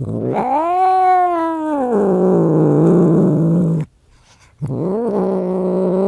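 A cat yowling angrily in two long, drawn-out calls. The first rises, holds, then sinks into a rough, growling tail. After a short pause about four seconds in, a second yowl begins.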